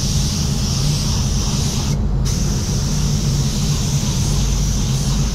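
Spot-repair spray gun hissing as it sprays waterborne base coat over stone chips. The trigger is released for a moment about two seconds in, then the spray starts again. A steady low hum of the paint booth's fans runs underneath.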